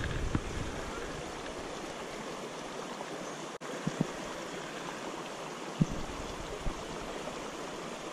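Shallow river current rushing steadily over a stony riffle. A few short dull knocks cut through it, two close together about four seconds in and another near six seconds.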